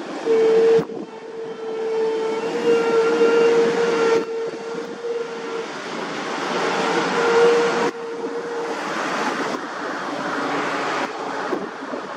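A horn sounds one long steady note of about five seconds, then a shorter second note about a second later. Under it runs steady engine and wind noise from amphibious vehicles driving down a slipway into the river.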